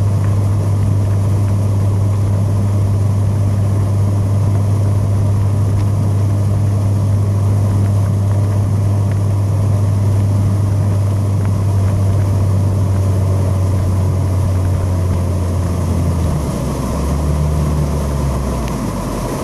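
Jon boat's motor running at a steady pace, with wind and water rushing past. About three-quarters of the way through, the engine note drops, wavers and gets a little quieter.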